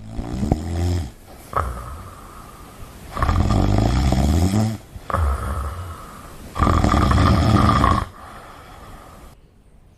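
Loud snoring: a run of long, rough snores with short pauses between them, the last ending about eight seconds in.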